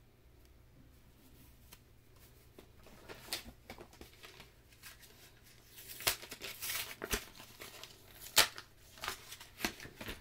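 Packaging being handled: intermittent rustling and crinkling with a few sharp clicks, starting about three seconds in and busiest in the second half, with one loud click near the end.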